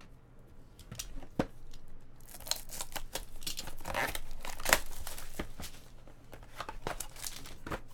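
Crinkling and tearing of a trading-card pack wrapper being opened, a dense crackle that is busiest through the middle.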